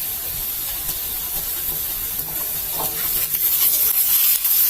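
Egg frying in plenty of hot oil in a kadai, a steady sizzle that gets a little louder about three seconds in, with a few faint clicks.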